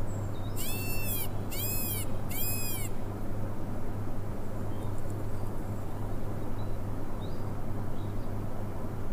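Peacock (Indian peafowl) calling three times in quick succession, each call a short arched wail, over a steady low hum and hiss.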